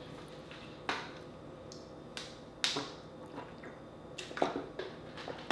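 A few separate sharp clicks and crackles from close-miked eating and from a plastic water bottle being handled and drunk from. The loudest comes about two and a half seconds in, with a small cluster a little after four seconds.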